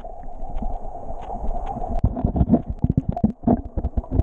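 Muffled underwater sound from a camera held under the surface of a creek: a low murmur of moving water with many irregular knocks and clicks, denser in the second half, as hands feel among the rocks.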